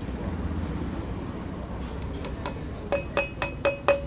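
Hammer blows on metal: sharp ringing strikes, about four a second, begin about three seconds in, as a front wheel bearing is driven out of a motorcycle wheel hub.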